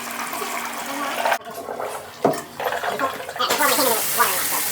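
Water running and gurgling through household plumbing, turning into a steady rush about three and a half seconds in, as when a fixture is flushed or run to test a drain line.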